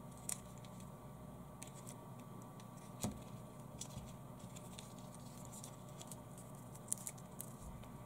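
Flexible plastic ruler being bent and curled by hand, giving faint scattered clicks and creaks of plastic and fingers, with one sharper tap about three seconds in.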